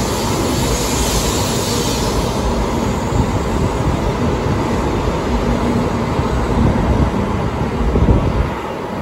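N700S Shinkansen train moving past along the platform, a steady loud noise of the passing train that drops a little about eight and a half seconds in as the last car goes by.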